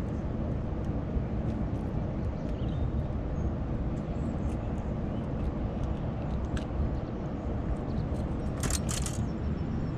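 A steady low rumble of outdoor background noise, with small scattered clicks as a lure's hook is worked free of a smallmouth bass's mouth by hand. A short burst of sharp handling noise comes about nine seconds in.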